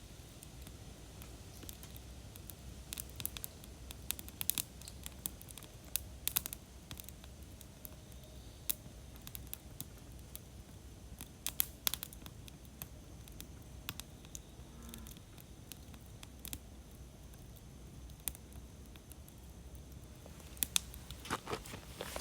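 Wood campfire crackling: irregular sharp pops and snaps, thickest about three to six, twelve and twenty-one seconds in, over a low steady rumble of the burning fire.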